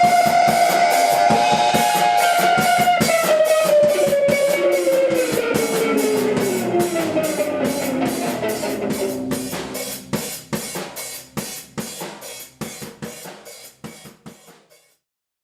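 A live post-hardcore/math rock band playing, with rapid drum-kit hits under a sustained electric guitar tone that slides slowly downward in pitch. The whole sound fades out over the last five seconds and stops shortly before the end.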